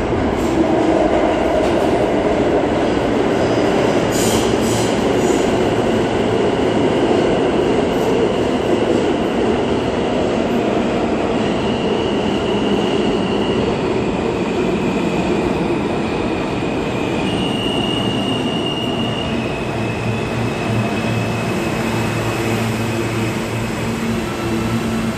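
An R160 subway train pulling into a station: a loud rumble of steel wheels on rail with some clanking. About halfway through, high squealing tones come in and step up and down in pitch as the train slows.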